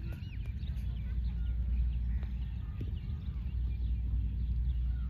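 Many birds chirping and calling at once, short rising and falling notes overlapping throughout, over a loud, steady low rumble.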